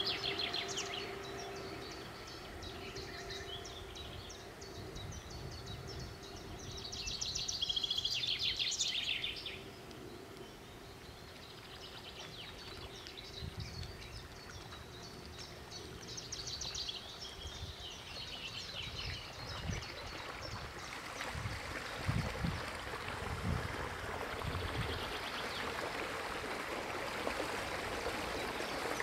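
Songbirds singing in short phrases. From about two-thirds of the way through, a growing hiss of rushing, splashing water rises as a small motorboat with an electric outboard approaches, with low gusts of wind buffeting.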